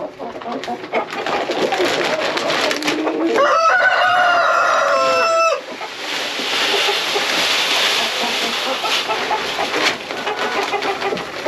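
A rooster crows once, a held call of about two seconds a few seconds in, over hens clucking. Then poultry feed is poured from a bag into a metal drum, a steady hiss of grain lasting about four seconds.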